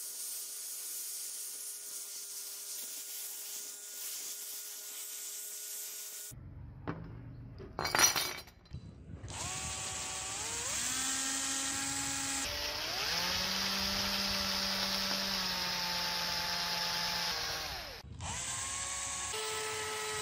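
Hand-held rotary tool with a sanding pad sanding the bare die-cast metal body of a model car. Its motor whine rises in pitch in two steps, holds steady, stops abruptly and starts again near the end. Before it there are a few seconds of steady hiss and one sharp knock, the loudest sound.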